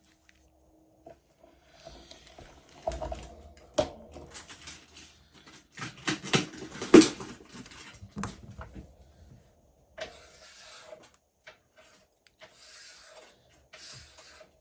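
Small parts being handled on a workbench: scattered clicks and knocks, a busy cluster of them a little after the middle with one sharp knock, then a few short rustles like tape or plastic film being handled near the end.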